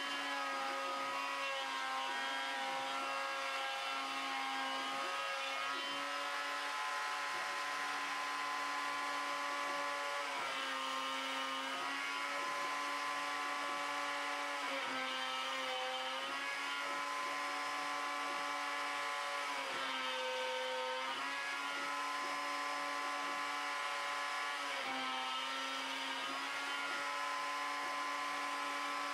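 Router on a homemade CNC machine whining steadily as its bit cuts pockets into a wooden guitar body blank. Its pitch dips briefly about every five seconds.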